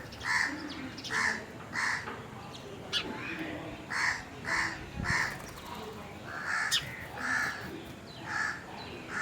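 Crows cawing over and over, the harsh calls coming in runs of two or three about half a second apart, with a few thin high chirps from other birds between them.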